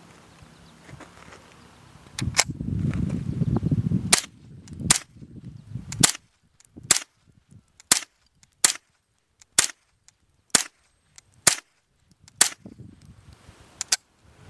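A Ruger 10/22 .22 LR semi-automatic rifle firing about a dozen sharp shots, roughly one a second. A burst of low rumbling noise comes between about two and four seconds in, under the first shots.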